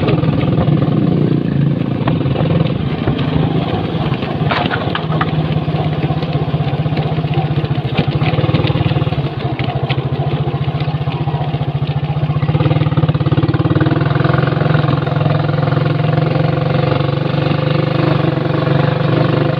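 Motor vehicle engine running at a steady drone, with a few faint clicks about four and eight seconds in.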